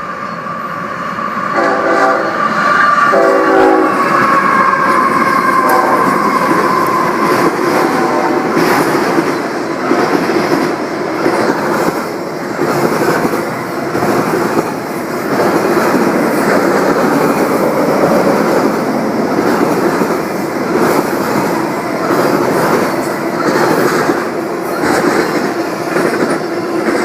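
A freight train led by Union Pacific diesel locomotives: the air horn sounds two short blasts about two and three seconds in, then the train's cars clatter and rumble past over the rails.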